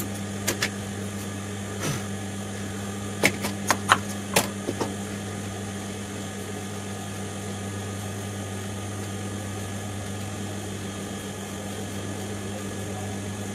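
Steady low electric hum of an industrial sewing machine's motor running idle, with no stitching. A few light clicks and taps between about three and five seconds in as fabric pieces are handled on the table.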